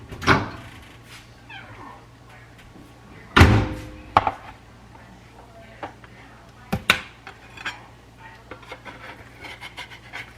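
A dog panting among several sharp knocks and clatters, the loudest about three and a half seconds in.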